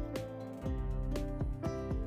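Background music with a steady beat, about two beats a second.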